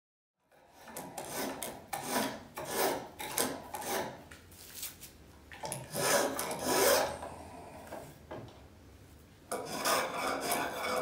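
Spokeshave shaving a wooden stick held in a shave pony: a run of short scraping cuts about two a second, then a few longer strokes, a brief pause about three-quarters of the way in, and the cuts start again.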